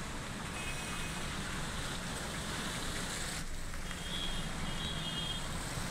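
Steady noise of traffic on a rain-flooded street: vehicles and motorbikes moving through standing water.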